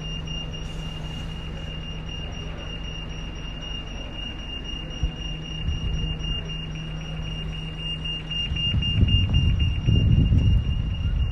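A continuous, steady high-pitched tone like an alarm sounds over outdoor background noise. About eight and a half seconds in, a heavier low rumble rises beneath it.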